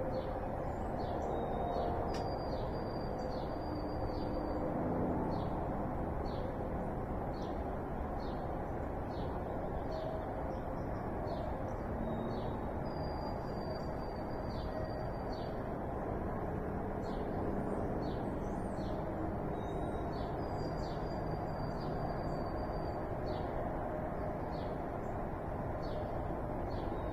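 Songbirds singing at dawn: short high chirps repeat about once a second, and a longer high trill comes back every several seconds. Beneath them runs a steady low background noise.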